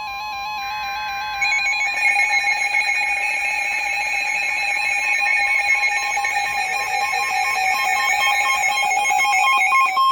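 NOAA Weather Radio alert tone: a steady high tone, with electronic alarm beeping layered over it from about a second and a half in, announcing an incoming tornado warning broadcast.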